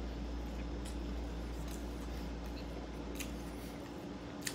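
A mouthful of breakfast taco being chewed close to the microphone: soft, wet mouth clicks at irregular intervals, over a steady low background hum.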